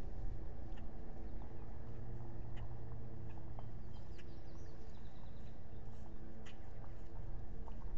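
Scattered short chirps of small wild birds, with a quick run of repeated notes about four seconds in, over a steady low hum.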